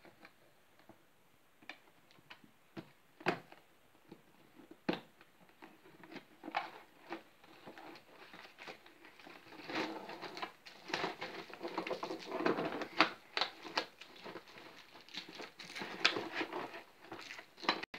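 Cardboard toy box being opened by hand: scattered taps and scrapes at first, then from about halfway through a dense run of rustling and crinkling as the packed contents are pulled out.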